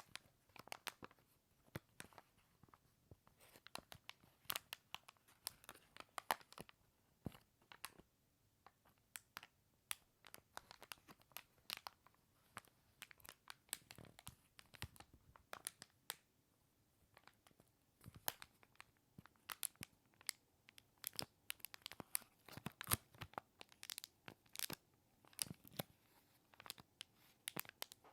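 Crinkly plastic packaging bag being handled and opened by hand: irregular sharp crackles and crinkles with short quiet gaps between them.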